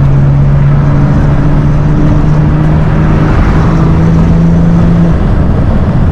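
BMW M2's turbocharged N55 straight-six under way at steady throttle: a steady engine drone over a loud rushing noise, the drone dropping away about five seconds in.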